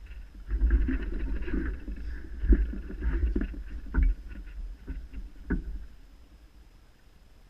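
Close rustling and rumbling with a few sharp knocks as an angler shifts on his seat box and handles his rod; it dies away near the end.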